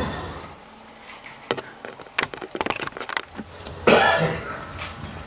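A run of quick light clicks, then one loud cough about four seconds in, echoing briefly in a small room.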